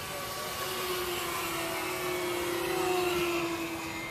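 Small engines of radio-controlled racing model airplanes buzzing overhead. One grows louder about three seconds in, then drops slightly in pitch as it passes.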